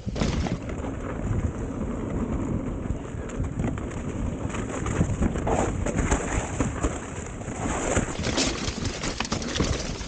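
Mountain bike descending a dry dirt trail: tyres rolling over packed dirt and loose ground, with the chain and frame rattling over the bumps and wind buffeting the microphone.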